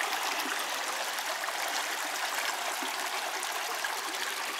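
Shallow creek water running steadily.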